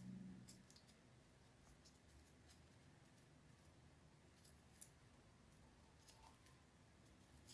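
Near silence with faint, scattered rustles and light ticks of ribbon being rolled and folded between fingers into a rosette, one tick a little louder a little before the middle.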